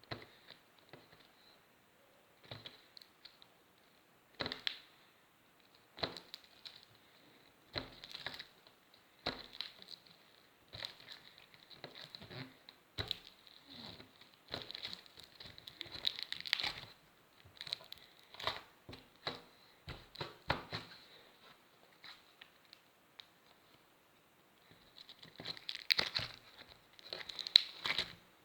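Slime-like magic putty (Squishy pasta magica Crystal Gems) being squeezed, stretched and pressed by hand, making irregular crackling and popping sounds in short bursts. The handling pauses for a few seconds, then starts again more loudly near the end.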